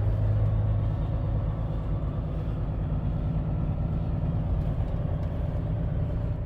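Semi-truck's diesel engine running steadily, a low even drone.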